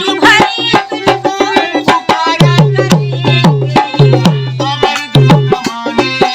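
Instrumental passage of a folk ghazal: a tabla-type hand drum playing a quick rhythm with repeated deep bass strokes under a melody line.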